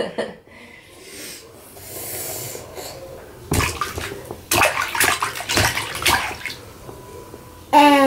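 Baby splashing bath water with her hands in a small inflatable tub, several splashes in a row a few seconds in. Near the end the baby laughs.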